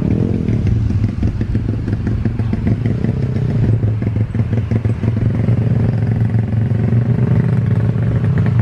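Motorcycle engine running close by with a steady low throb, with a brief rise and fall in pitch at the very start.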